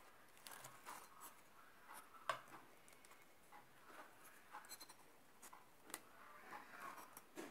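Faint, scattered crackling and scratching of a knife cutting through crisp baked filo pastry, with one sharper click a little over two seconds in.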